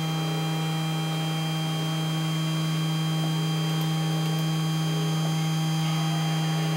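Desktop PCB milling machine running: its motors give a steady hum with a thin high whine above it.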